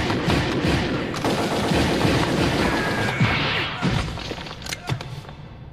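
Film soundtrack gunfire: a handgun fired rapidly, shot after shot with impacts running together, thinning out to a few scattered shots near the end.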